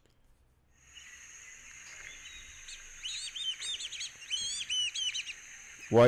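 White-faced whistling ducks calling in a field recording: a quick series of clear, high, multi-note whistles starting about three seconds in, over a faint steady high-pitched hiss.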